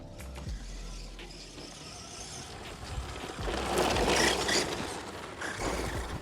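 Team Corally Mammoth SP 1/10 brushed 2WD RC monster truck running on a 3S LiPo, its motor and tyres on the ground making a rough rushing sound. It grows much louder about three and a half seconds in for roughly a second, then eases off.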